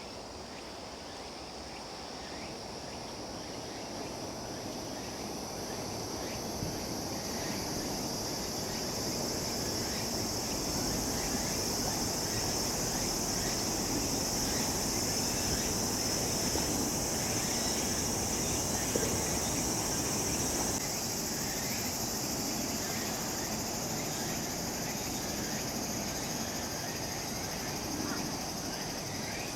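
Steady high-pitched chirring of insects over a low, even background rumble that slowly grows louder over the first ten seconds.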